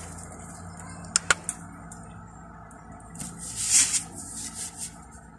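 Scissor blade drawn along a plastic ruler to score a fold line into colored paper: a scrape about a second and a half long in the second half. Two sharp clicks sound a little after one second in.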